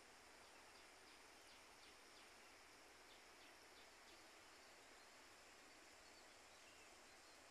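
Near silence: a faint steady hiss of outdoor ambience, with a run of faint short high chirps through the first half.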